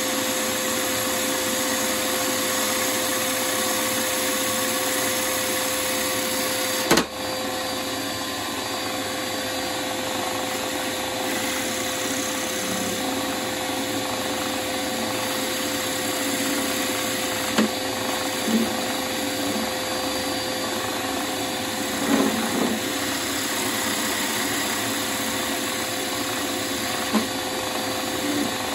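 Wood lathe running steadily with a constant motor hum. A sharp knock comes about seven seconds in, with a few lighter knocks later on.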